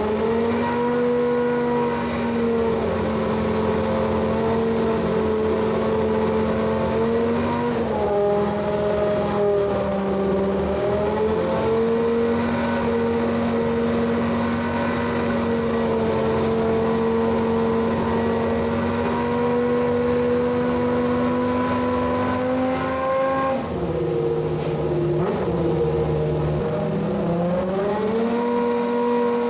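Toyota TS010 Group C race car's 3.5-litre V10 running at steady revs. Its pitch drops for a few seconds twice, about eight seconds in and again near the end, then climbs back.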